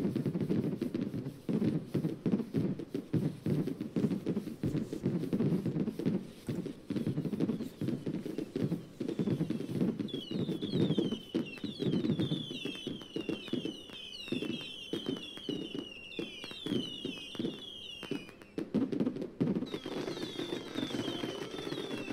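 Fireworks sound effects from a HoloLens holographic fireworks display: a dense run of pops and thuds, joined from about ten seconds in by a long string of short falling whistles.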